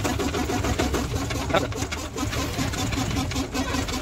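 A machine running steadily with a rapid, even pulse of about six or seven beats a second over a low rumble.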